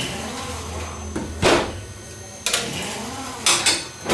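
A series of sharp knocks, about one a second, four in all, the first the loudest, over a steady low hum that stops at the first knock.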